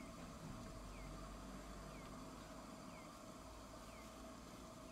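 A short falling chirp repeating evenly about once a second, over the low, steady hum of a tram.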